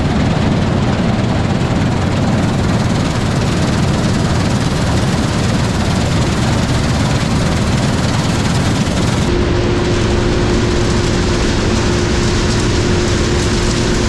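Massey Ferguson 38 combine harvester running steadily under load while cutting field beans, a dense mechanical din of engine and threshing gear. About nine seconds in the high hiss thins and a steady whine comes in.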